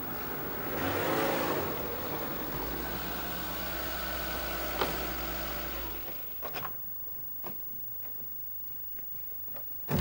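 Small hatchback car driving up with its engine running, the engine cutting off about six seconds in. A few light clicks follow, then one sharp slam near the end, a car door shutting.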